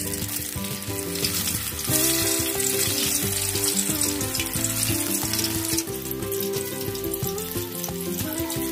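Thin cassava slices sizzling as they deep-fry in hot oil, the sizzle louder from about two to six seconds in as fresh slices drop in. Background music plays underneath.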